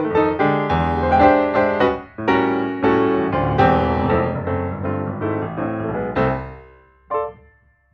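Background piano music. The notes thin out and die away about six seconds in, with one last short note about a second later.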